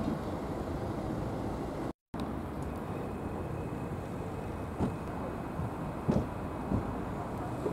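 Steady outdoor background rumble that drops out for a moment at a cut about two seconds in, with a few short knocks in the second half.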